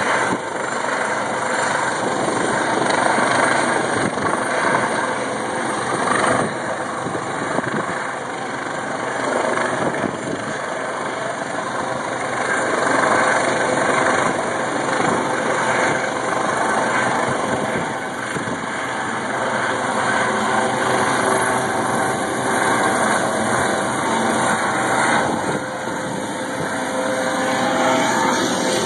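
Helicopter flying overhead: a steady, loud drone of rotor and engine that swells and eases a little as it moves.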